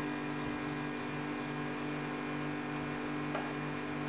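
Steady low electrical hum with a faint pulsing note beneath it, and a single light tap about three and a half seconds in.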